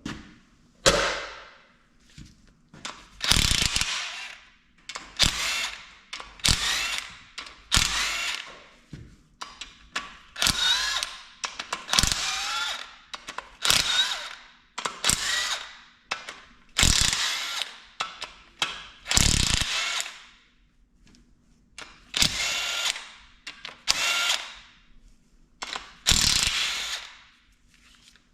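Powered ratchet spinning out bolts in repeated short bursts, about one every second or two, removing the cover bolts on a Detroit Diesel 4-53T engine block.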